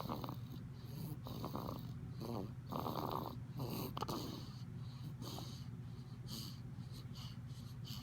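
Baby of nearly two months snoring in its sleep with quick, rough, congested breaths, one or two a second and loudest around three seconds in. This is the laboured breathing of a cold that the doctor diagnosed as bronchiolitis.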